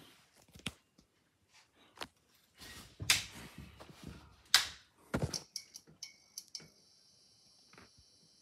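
Knocks and switch clicks, the loudest about three and four and a half seconds in, then a fluorescent tube fixture coming on with a steady high-pitched ballast whine from about six seconds in.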